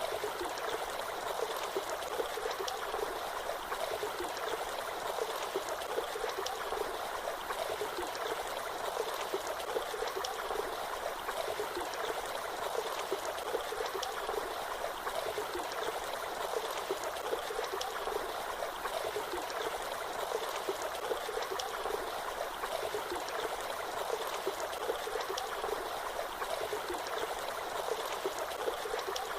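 Running water of a stream, trickling and splashing steadily.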